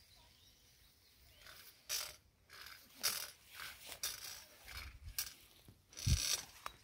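Footsteps swishing through tall grass and weeds: a run of short, irregular rustles about a second apart, with a low thump about six seconds in.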